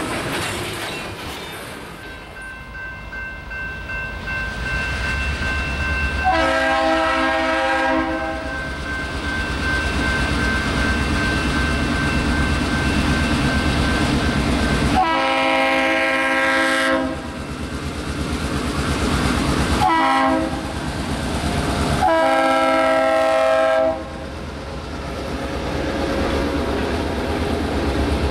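Diesel freight locomotive's multi-chime air horn sounding the grade-crossing signal: two long blasts, a short one and a final long one, over the low rumble of the approaching locomotive's engine. Before that, freight cars roll past with wheel clatter.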